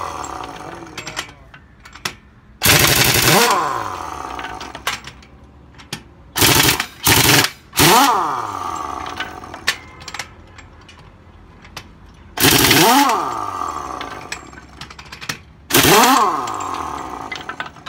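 Heavy pneumatic impact wrench hammering on a truck wheel's lug nuts in six bursts of about half a second to a second each, three short ones close together in the middle. After each burst the tool's motor winds down in falling pitch.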